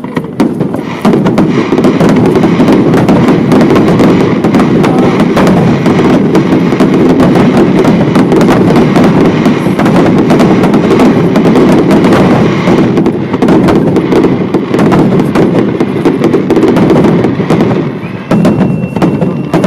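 Fireworks display: a dense, continuous barrage of bangs and crackling at full loudness, easing slightly near the end.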